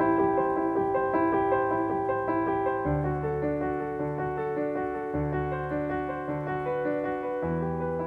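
Gentle background piano music: quick repeated notes over low bass chords that change every two seconds or so, slowly growing softer.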